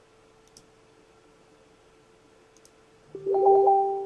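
A couple of light clicks, then about three seconds in a loud electronic notification ding: one clear tone that rings for about a second and fades.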